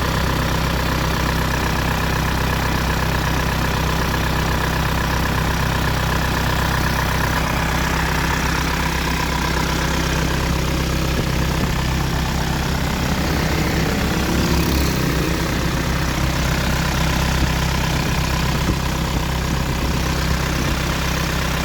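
Isuzu Panther pickup's 2.5-litre direct-injection diesel engine idling steadily.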